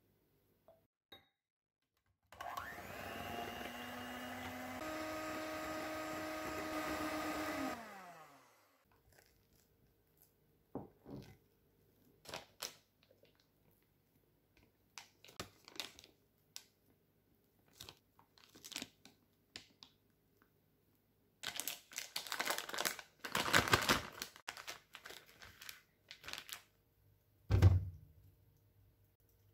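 An electric hand mixer whips cream for about six seconds, steps up in speed once, then winds down as it stops. A spatula then scrapes and taps a glass bowl, a plastic piping bag crinkles loudly as it is handled and filled, and there is a single thump near the end.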